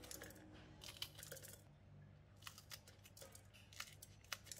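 Kitchen scissors snipping fresh red chillies into short pieces: a series of faint, crisp snips at an uneven pace.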